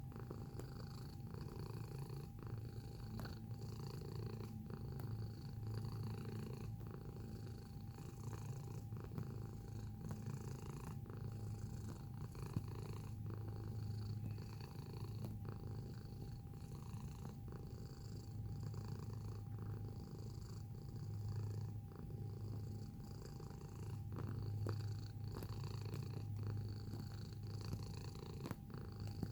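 Domestic cat purring close to the microphone: a steady low rumble that swells and eases every second or two, with a few faint clicks.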